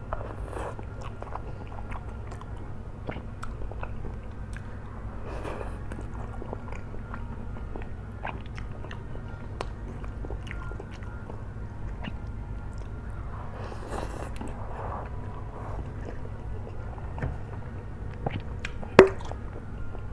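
Close-up chewing and mouth sounds of a person eating kwetiau flat rice noodles, with many small wet clicks, a few longer noisy stretches and one sharper click near the end, over a steady low hum.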